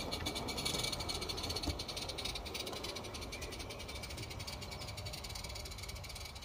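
A 16mm-scale garden railway train running on its track: a fast, even clicking that slowly fades as the train moves away.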